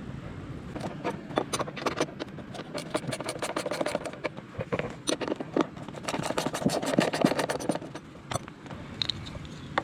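Hands handling small hard parts under a car bonnet at the battery: a quick run of clicks, taps and scrapes that thins out near the end.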